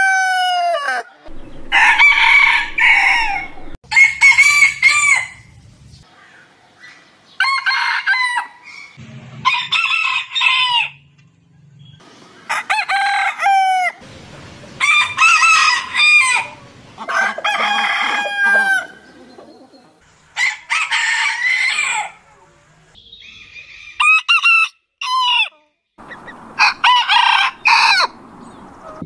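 Roosters crowing one after another, about ten crows in all, each a pitched cock-a-doodle-doo of one to two seconds that rises and then falls, with short pauses between them. The crows come from different birds, so their pitch and length vary from crow to crow.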